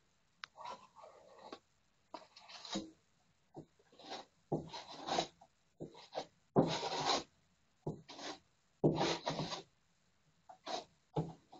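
A small metal filling knife scraping over a patch of filler on a wall: about a dozen uneven rasping strokes, each well under a second, with short pauses between them.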